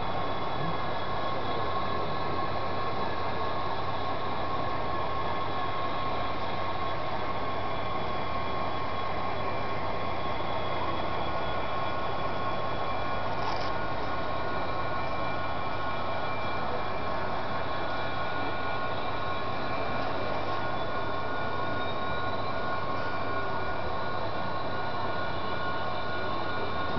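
O scale model of a British Class 66 diesel locomotive, its onboard sound system playing a steady diesel engine sound through a small speaker.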